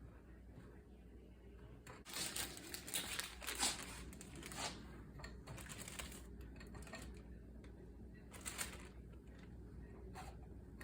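Faint, irregular rustling and light clattering of things being handled, busiest from about two to five seconds in, with another short burst near nine seconds.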